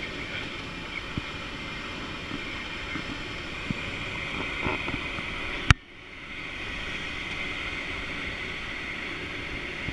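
Steady rushing airflow noise in a glider cockpit in flight, with a few faint knocks. A single sharp click comes a little over halfway through.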